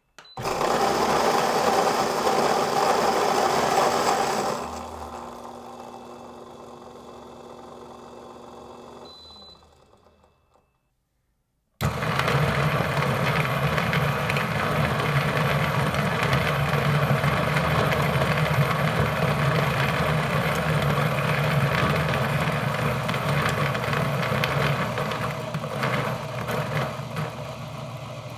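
A Fellow Ode flat-burr coffee grinder grinds a dose of beans loudly for about four seconds, then runs on more quietly once empty, gives a short high beep and spins down to silence. About a second later a Niche Zero conical-burr grinder starts abruptly and grinds its beans steadily for about sixteen seconds, easing off a little near the end as it runs empty.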